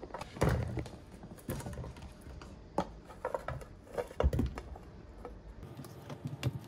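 Thick slices of peeled potato being set by hand into a metal pot with a little water in the bottom: scattered soft thunks and knocks against the pot, at irregular intervals.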